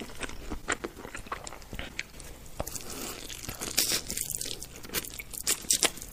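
Close-up mouth sounds of eating spicy instant noodles: chewing and lip smacks in a string of short, wet clicks, with noodles slurped in near the end.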